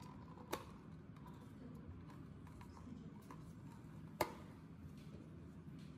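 A clear plastic dome lid clicking as it is pressed onto a plastic cup: two sharp clicks, about half a second in and about four seconds in, with a few lighter ticks between them, over faint room noise.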